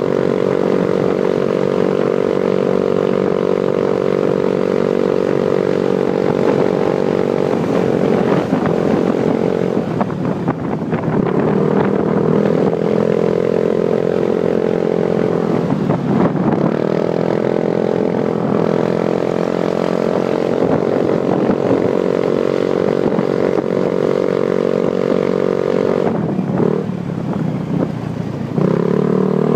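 Motorcycle engine pulling uphill under steady throttle, its note dropping and then climbing again several times as the rider eases off and picks up speed through the bends, with wind rushing over the microphone.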